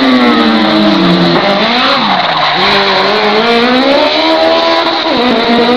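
Open-wheel single-seater race car engine running hard as the car passes, its pitch dropping sharply twice early on, climbing steadily, then dropping again near the end as the driver brakes and accelerates through the course.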